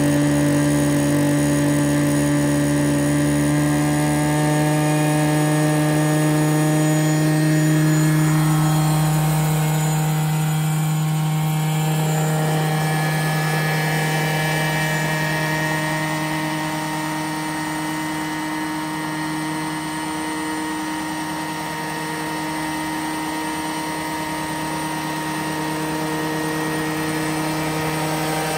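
Petrol engine and rotors of a large-scale Vario Bell 212 radio-controlled helicopter, running steadily as the model lifts off the grass and hovers low. It is one continuous drone, a little quieter in the second half.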